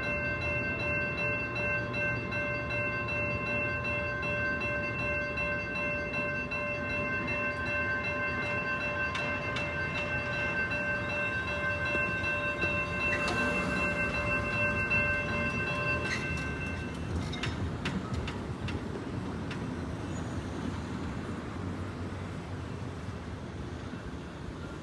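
NEG electronic railroad crossing bells ringing steadily as the crossing gates rise, cutting off about two-thirds of the way through, with a few clicks as the gates finish rising. Afterwards cars drive over the crossing.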